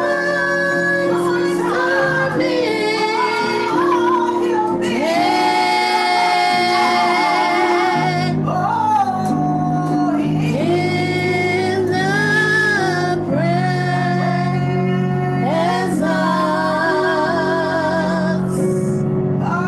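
Gospel worship song: a woman sings the lead melody with vibrato on long held notes, over sustained accompanying chords.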